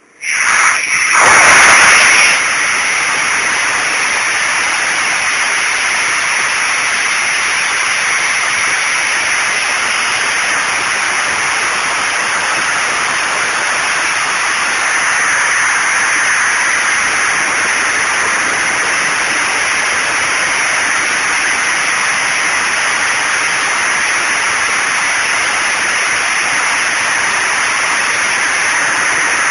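ED-200 diesel generator's 12-cylinder tank-derived diesel engine running under load, heard from inside its enclosure as a very loud, steady noise that overwhelms a simple phone's microphone into a hiss. It comes in suddenly at the start and is a little louder for the first couple of seconds.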